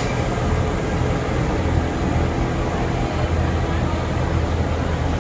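Kuranda Scenic Railway train running: a steady low rumble with a faint, even hum underneath.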